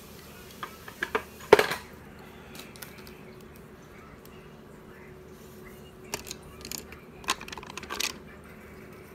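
Sharp clicks and light clinks of small hard objects being handled, a few about a second in with the loudest about a second and a half in, then another cluster between six and eight seconds in, over a faint steady hum.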